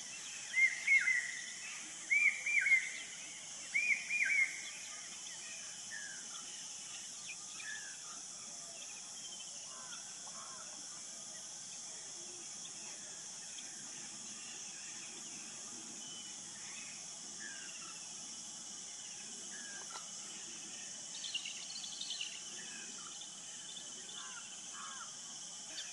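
Natural grassland ambience: a steady high-pitched insect drone under bird calls. A bird gives a run of loud arched calls in the first few seconds, then fainter scattered bird notes follow, with a short burst of higher calls a little past the middle.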